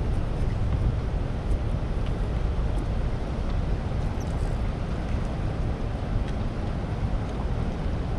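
Steady rushing of churning water below a dam's spillway, a constant noise heaviest in the low end.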